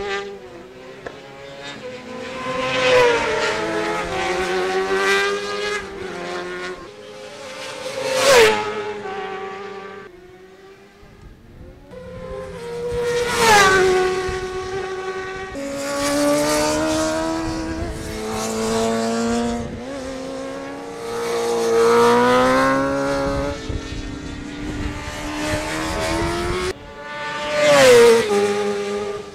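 Racing superbikes at high revs on a circuit, the engine note climbing and dropping with gear changes. Several bikes pass close by, each loud pass ending in a sharp drop in pitch; the loudest come about a third of the way in, about halfway, and near the end.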